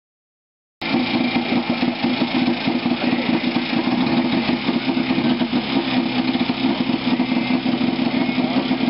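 Vintage snowmobile's two-stroke engine running at a steady idle, cutting in abruptly just under a second in.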